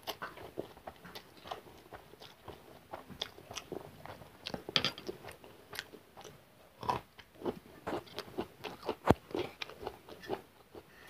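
Close-miked eating: chewing mouthfuls of noodles, with crunchy bites into a raw green chilli and many short sharp mouth clicks and smacks.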